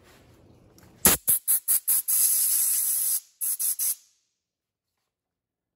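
A pressurised nozzle hissing in several short blasts and one longer blast of about a second, blowing out a grease passage clogged with dirt in a tractor lift-linkage fitting. It cuts off abruptly about four seconds in.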